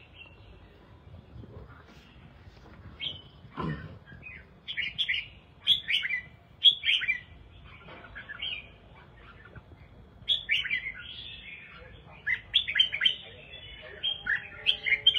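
Caged red-whiskered bulbul singing short, bright warbling phrases in bursts, which start a few seconds in and come thickest near the end. A single dull knock comes at about three and a half seconds.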